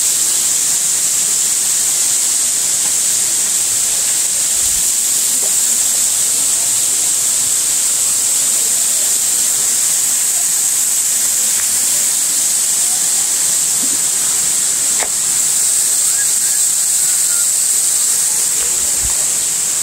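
Waterfall close by, its falling water and spray making a loud, steady high hiss with no break.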